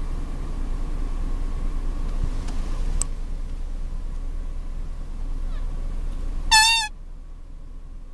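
Steady low outdoor rumble, with a sharp click about three seconds in and, a little past six seconds, a brief high wavering squeal, the loudest sound; the rumble drops away after it.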